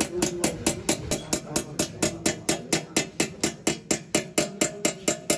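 A small hammer tapping a chasing chisel to cut a pattern into a brass tray on a steel stake: rapid, even metallic taps, about four to five a second, with a faint ringing tone under them.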